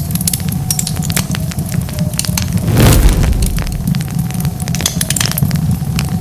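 Wood fire crackling, with many sharp pops and snaps over a steady low rumble of flames. About three seconds in comes one louder burst, lasting about half a second.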